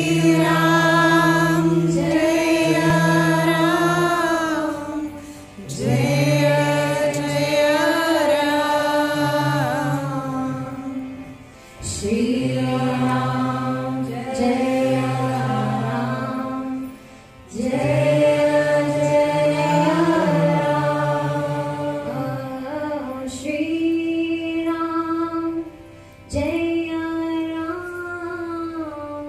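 Devotional kirtan chant: voices singing a mantra with instrumental accompaniment, in long held phrases of about five or six seconds, each breaking off briefly before the next begins.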